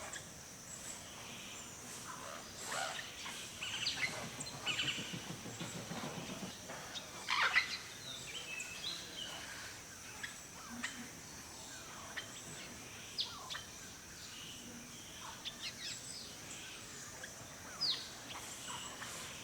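Forest birdsong: several birds giving short chirps and quick sweeping calls, busiest in the first half, with the loudest call about seven seconds in, over a steady high-pitched drone.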